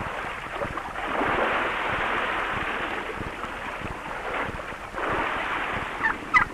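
Sea surf breaking on a rocky shore, a rushing wash that swells and falls with each wave. A few short high calls sound near the end.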